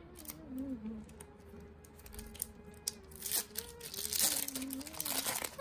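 Trading cards and their foil pack handled by hand: cards sliding and flicking, with crinkling rustles that grow louder in the second half.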